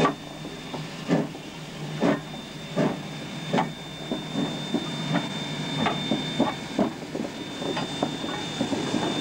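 Queensland Railways C17 class 4-8-0 steam locomotive pulling away: exhaust chuffs from the chimney, about one a second at first and quickening to about three a second as it gathers speed, over a steady hiss of steam.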